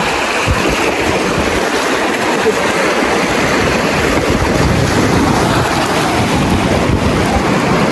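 Steady loud rush of river water, with wind buffeting the microphone in low, uneven rumbles.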